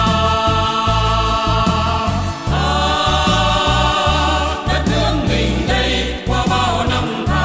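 Music: held choir-like chords over a steady pulsing bass beat, the chord changing about two and a half seconds in.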